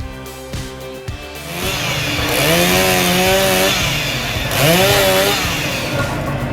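Background music with a beat, then a chainsaw running loudly, revving up and down twice.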